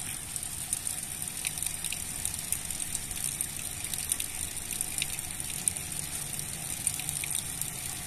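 Steady hiss of rushing water, with many faint scattered ticks.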